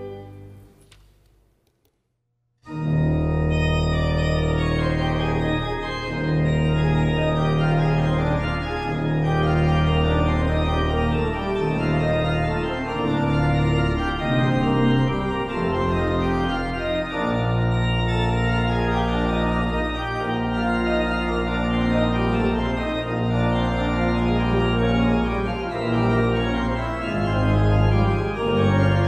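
Organ music: a held chord fades away, then after a brief silence a new organ piece begins about two and a half seconds in, full and sustained with deep bass notes and slowly changing chords.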